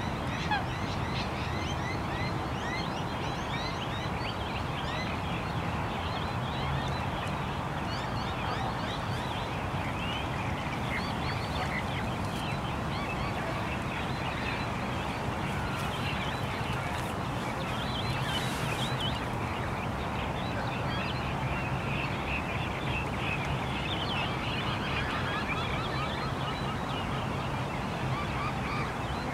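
Swans honking among the dense chirping of many other birds, over a steady low hum of distant traffic.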